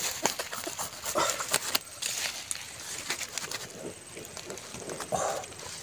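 Machete blade cutting and scraping through the charred, brittle shell of a large fire-roasted egg, making a run of short, sharp clicks and crackles.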